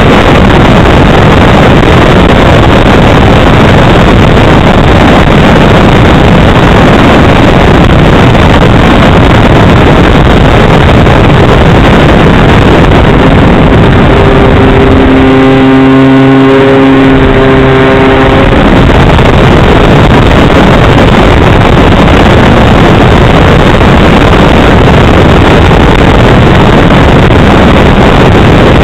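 NexStar RC plane in flight, heard from its onboard camera: a loud, constant rush of wind on the microphone mixed with the motor. About halfway through, a steady humming motor tone comes through plainly for about four seconds.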